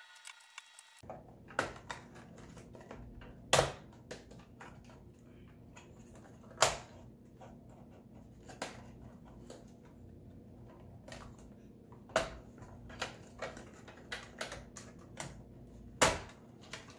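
Irregular plastic clicks, taps and knocks from a flathead screwdriver and hands prying wire connectors and working the plastic housing of a robot vacuum's self-emptying base. A few knocks stand out, the loudest about three and a half, six and a half and sixteen seconds in.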